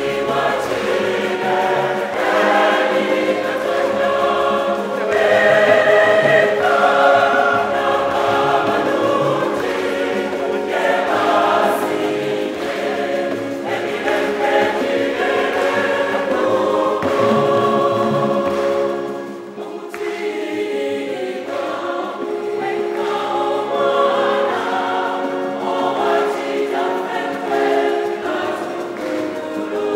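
Church choir singing a hymn in several voice parts, with women's voices to the fore; the singing eases briefly about two-thirds of the way through, then carries on.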